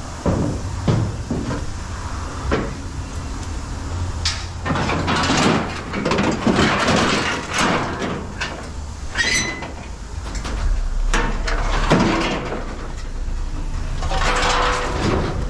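Scrap metal being handled and moved, with repeated clanks, knocks and clatters at irregular intervals over a steady low rumble.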